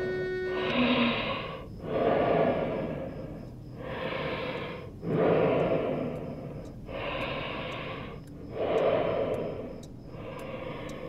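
Heavy, slow human breathing: a run of long, noisy breaths in and out, each one to two seconds long, with short pauses between them.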